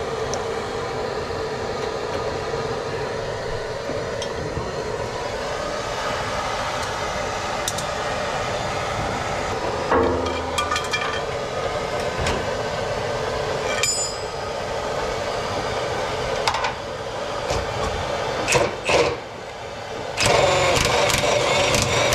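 Handheld propane torch hissing steadily as it heats a stuck bolt, with short bursts of an impact wrench hammering on the bolt about ten seconds in and again near the end, the last burst lasting a couple of seconds.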